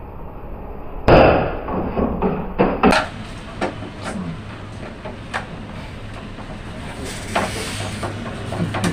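Sharp knocks and clicks of hand tools and hardware during battery and inverter wiring work. The loudest is a sudden knock about a second in, followed by a couple of seconds of clattering, then scattered single clicks.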